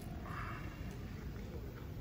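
Cat crunching dry kibble, a few faint crunches over a steady low rumble, with a brief higher-pitched sound about a quarter second in.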